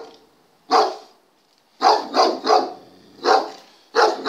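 German shepherd barking at a decoy in a bite suit: one bark, a pause of about a second, then five more barks in quick succession.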